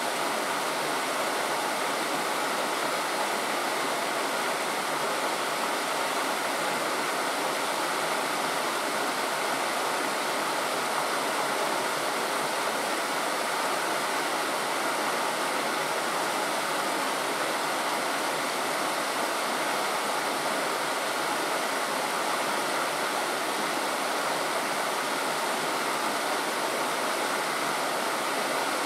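Steady rushing of flowing water, an even noise with no breaks or separate events.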